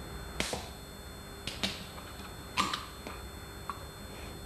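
Ring-pull tab of an unshaken, chilled aluminium drink can being levered up, giving a few sharp clicks over about three seconds, the loudest about two and a half seconds in as the can is cracked open.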